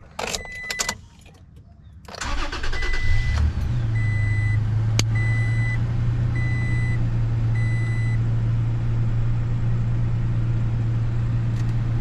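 Toyota Tacoma V6 engine cranking and catching about two seconds in, then settling into a steady idle: the first start on fresh oil and a new filter. A dashboard chime beeps about six times at an even pace during the first seconds of running.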